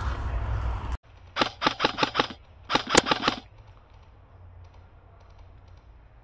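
Airsoft rifle firing two quick strings of about five shots each, sharp snapping clicks roughly five a second, heard close from the scope-mounted camera. Before them, about a second of loud rustling and handling noise that cuts off abruptly.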